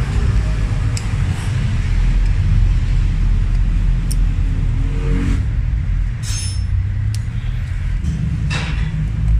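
Phillips screwdriver turning out the screws of an EGR valve's actuator housing, with a few light metal clicks, over a loud steady low rumble.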